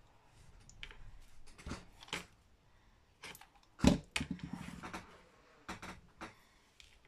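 Small clicks and rustles of paper and thread being handled on a cutting mat, with a louder knock about four seconds in as the hot glue gun is picked up and set back down, followed by a brief rattle.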